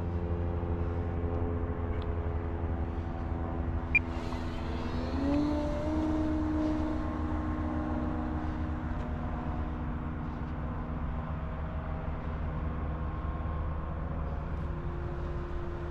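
Electric brushless motor and propeller of an E-flite Extra 330SC RC plane in flight, a steady whine that rises in pitch about five seconds in as the throttle is opened, then holds. Underneath is a steady low rumble, with a single sharp click about four seconds in.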